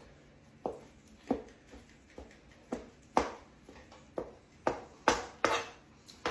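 Kitchen knife coarse chopping boiled chicken tenders on a cutting board: about ten sharp knocks at an uneven pace, a little closer together in the second half.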